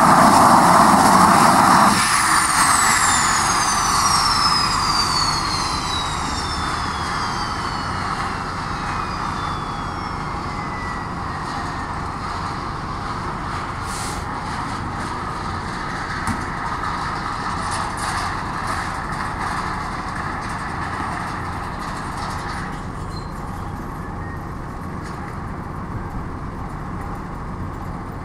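A Let 410's turboprop engine being shut down. The engine and propeller noise cuts off sharply about two seconds in, then a falling whine winds down over about ten seconds as the turbine spools down. A service truck's engine runs beside the aircraft.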